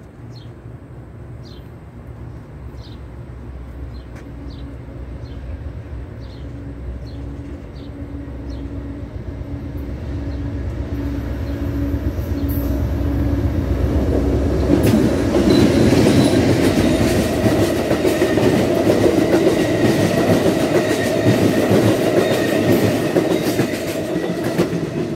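Amtrak diesel-hauled passenger train approaching with a rumble that grows steadily louder, then the locomotive and cars passing close by from about fifteen seconds in. The pass is loud wheel-on-rail noise with a thin steady high whine running through it.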